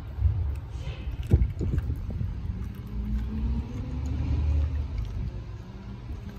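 German shepherd chewing and crunching a raw bone-in chicken thigh, with a sharp crunch about a second and a half in, over a low rumble.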